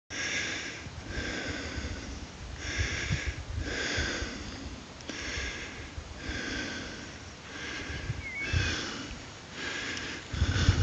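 Heavy rhythmic breathing close to the microphone, about one breath a second, with low thumps from handling or footsteps.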